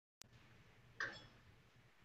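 Near silence: faint room tone, with a small click as the sound comes in and one brief, sharper tap about a second in.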